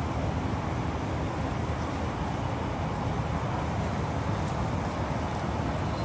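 Steady low rumble of engines, even throughout, with no distinct knocks or clanks.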